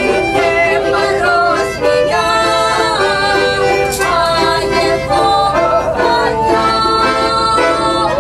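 Two women singing a Russian folk song in high, full voices, accompanied by an accordion.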